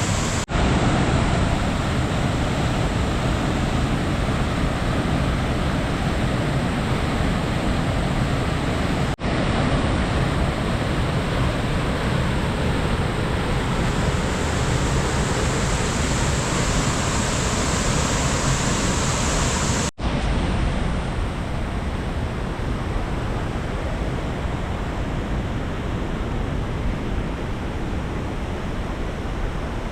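A large waterfall in heavy flow after prolonged rain: a loud, steady rush of falling water. It is broken by three brief dropouts where the recording cuts.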